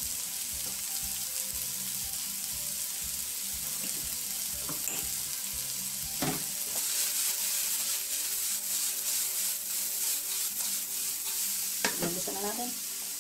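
Julienned carrots, sweet potato and onion sizzling in hot oil in a frying pan. A knock about six seconds in, then the vegetables are stirred and the sizzle grows louder and crackles for several seconds, with another knock near the end.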